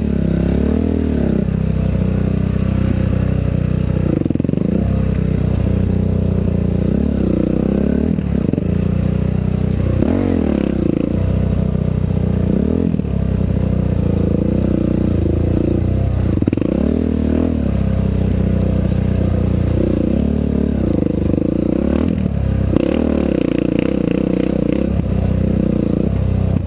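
Off-road race vehicle's engine heard from on board at speed, its pitch climbing and dropping again every couple of seconds as it is driven hard over rough desert terrain.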